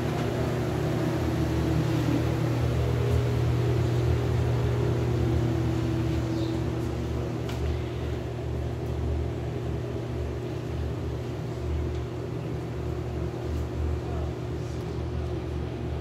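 Steady low machinery hum, like ventilation fans running, with a few faint knocks.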